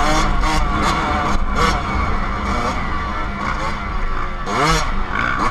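Dirt bike engine revving hard, its pitch climbing and dropping repeatedly, with wind rushing over the microphone.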